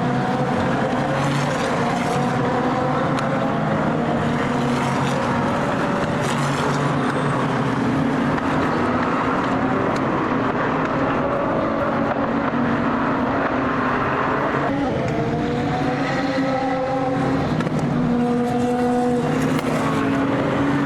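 Endurance racing cars' engines at high revs, several cars passing one after another, each engine's pitch sliding as it goes by. The engine note changes abruptly about three-quarters of the way through.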